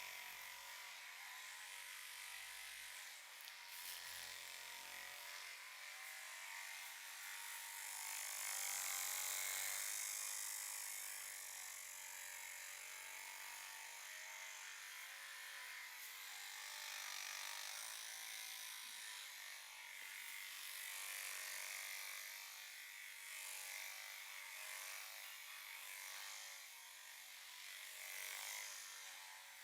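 Head massage on hair and scalp: a steady, faint rubbing hiss that swells about eight seconds in.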